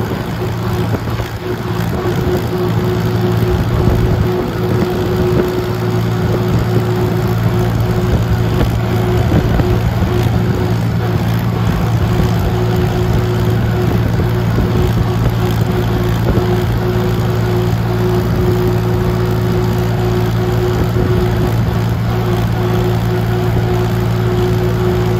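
Vintage tractor engine running at a steady speed while under way, a constant low drone that is slightly quieter for the first couple of seconds.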